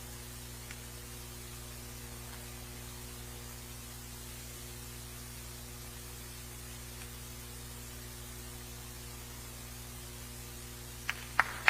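Steady electrical mains hum with hiss, with no other sound until two sharp clicks near the end.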